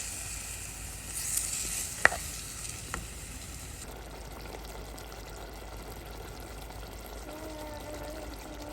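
Mango curry sizzling and bubbling in the pot after water has been added to the oil-fried mangoes, the hiss easing down to a low steady simmer. Two light knocks about two and three seconds in.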